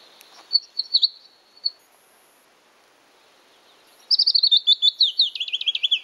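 Recorded willow warbler song played through the small speaker of a Ting reading pen. A few short high notes come first. After a pause comes a quick phrase of clear notes that runs steadily down in pitch over about two seconds.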